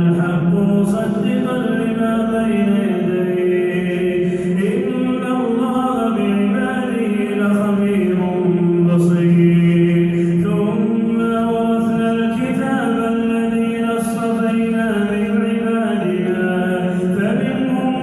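A man reciting the Quran in a slow, melodic chant, drawing out long held notes that step up and down in pitch.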